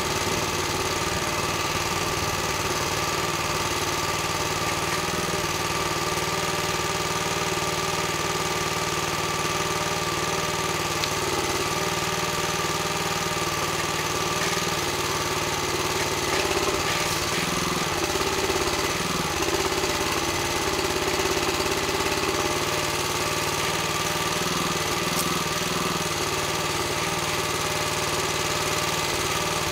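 Small engine running steadily to drive a forestry trailer's hydraulic timber crane. Its pitch dips and recovers a few times in the middle as the boom swings and the grapple works under load.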